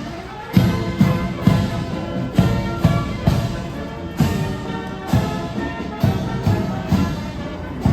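Military marching band playing a march: brass over a bass drum beating a steady marching pace, about two beats a second.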